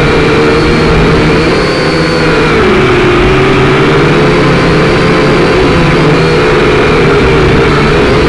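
Quadcopter's electric motors and propellers buzzing loudly, heard from on board the craft, several whining tones whose pitch wavers gently up and down as it holds its height.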